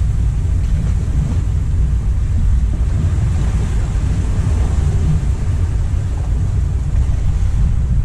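Wind buffeting the microphone in a steady low rumble, over sea waves washing against the rocks.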